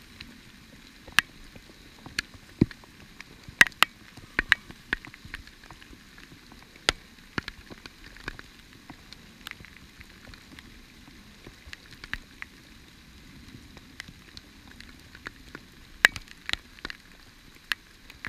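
Pouring rain: a steady hiss with irregular sharp taps of drops striking close by, a few much louder than the rest.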